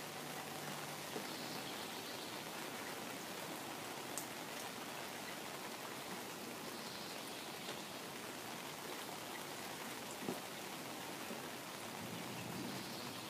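Rain falling steadily on a pond's surface and the ground around it, an even hiss of drops with an occasional faint tap.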